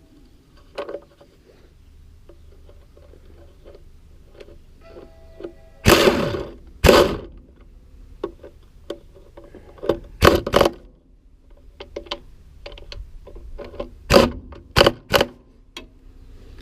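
Metal knocks and clanks of hand work on a feed wagon's bearing and shaft: scattered light clicks and taps, with loud sharp strikes in a pair about six seconds in, another pair near ten seconds, and three in quick succession near the end.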